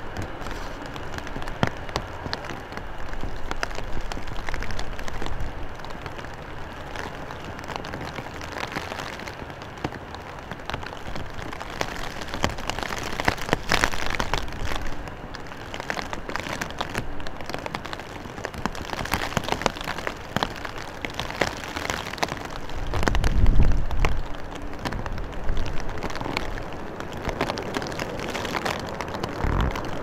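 Rain falling steadily in strong wind, a patter of fine drop clicks, with a gust buffeting the microphone about two-thirds of the way through.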